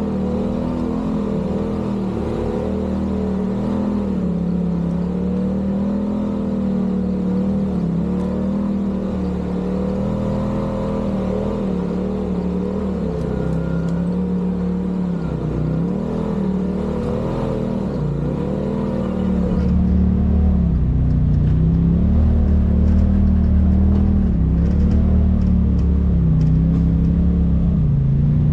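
Side-by-side UTV engine running at steady, low throttle, its pitch wavering and dipping now and then. A deeper rumble comes in louder about two-thirds of the way through.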